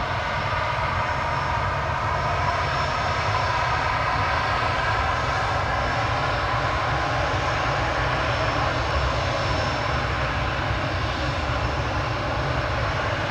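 Airbus A319 jet engines running, a steady whine of several tones over a low rumble that grows a little louder about two seconds in.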